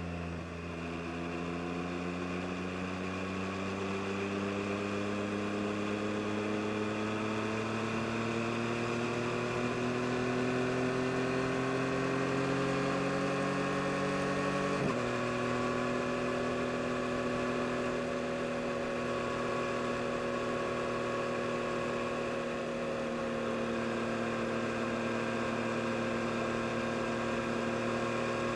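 2022 Yamaha MT-09 SP's 890 cc inline-three engine under way, its revs climbing slowly for about fifteen seconds. Midway the revs drop in one sudden step, an upshift, and the engine then runs at fairly steady revs.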